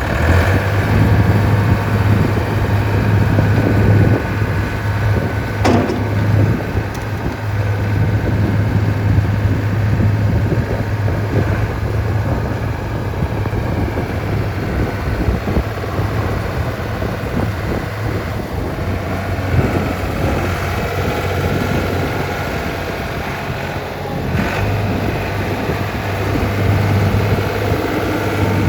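1992 Ford New Holland L785 skid steer's engine running steadily, a little quieter through the middle stretch, with a sharp click about six seconds in.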